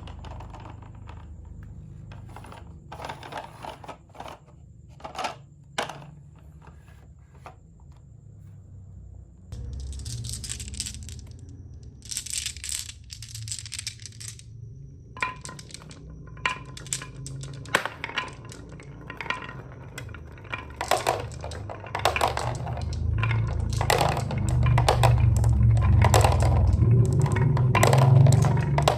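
Marbles rolling down a wooden HABA marble run, with many sharp clicks and clacks as they strike the track pieces and each other. A low rolling rumble grows louder over the last several seconds.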